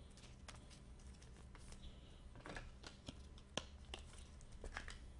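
Trading cards being handled and flipped through by hand: faint, irregular small clicks and taps of card edges, a few a second, with some slightly louder ones in the second half.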